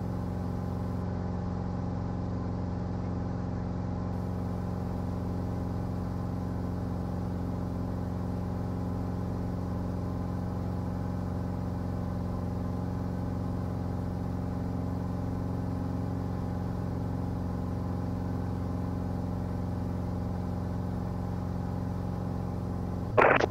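A Cirrus SR20's four-cylinder piston engine and propeller running at a constant setting: a steady, unchanging drone in flight.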